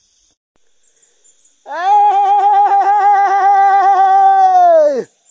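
A man's long call with his hands cupped to his mouth, beginning about a second and a half in and held loud on one high pitch with a slight wobble for over three seconds, sliding up at the start and dropping off at the end.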